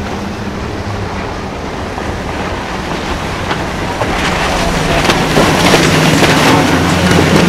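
A center console boat's outboard motors running at speed with a steady drone, under the rush of water and wind. The sound swells over the second half as the boat passes close, with spray and wake hissing and slapping off the hull.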